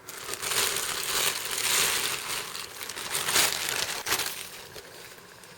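Crinkling and rustling of product packaging being handled, with several louder crackles, dying away near the end.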